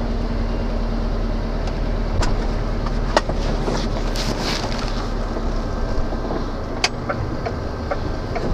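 Cab interior of a DAF LF truck rolling slowly on a wet road: steady diesel engine hum and tyre noise. A few sharp clicks and knocks come through, the loudest about three and seven seconds in.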